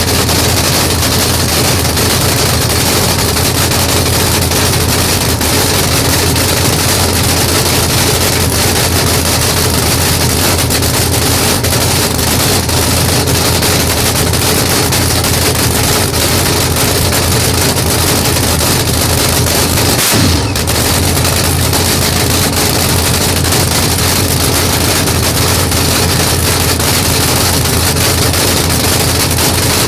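Chevy Vega "Assassination" funny car's engine running loud and steady, with a momentary break about twenty seconds in.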